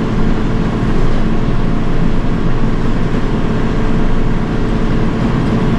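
Tractor engine running steadily under load, a constant loud drone with a held hum.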